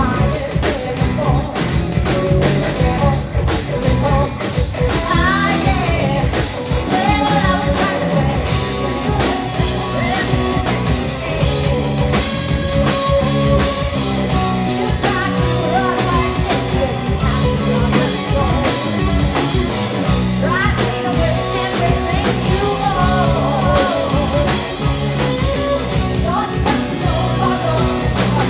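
Rock band playing live: a full mix over a steady drum beat, with singing.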